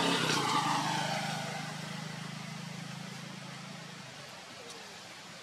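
A motor vehicle's engine hum passing by, fading steadily and gone about four seconds in.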